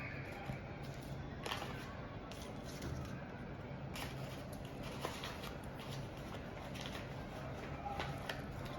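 Faint handling noises: a few light taps and rustles from hands moving paper craft pieces, over a steady low background hum.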